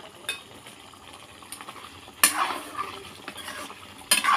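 A spoon scraping and clinking against a pot as chicken curry is dished out. There is a small clink just after the start, the loudest scrape and clink about two seconds in, and another clink near the end.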